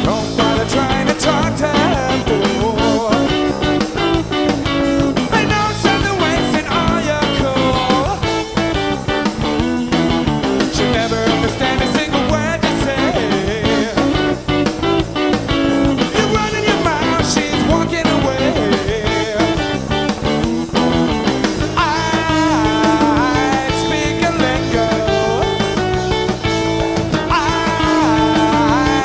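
A rock band playing live, with guitars over a drum beat.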